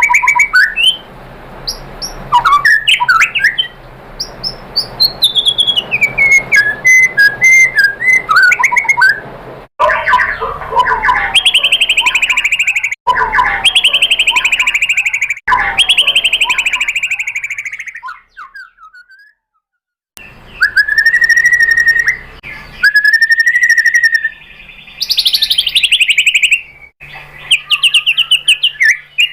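White-rumped shama singing: loud whistled phrases and runs of fast repeated notes. The song is spliced together from several recordings, with abrupt cuts and a brief silence about two-thirds of the way through.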